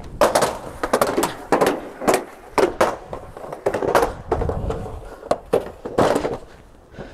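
Inline skates rolling and striking over rough street ground: an uneven run of clacks and knocks, several a second, with wind rumbling on the microphone.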